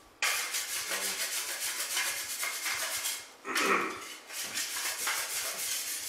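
Two metal drywall taping knives scraped against each other to wipe off joint compound: a continuous rough rasping scrape that breaks off briefly a little past halfway, then resumes.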